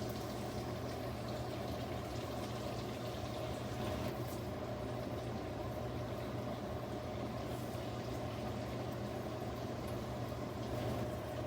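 Pork chops frying in butter in a pan, a steady sizzle, over a steady low hum.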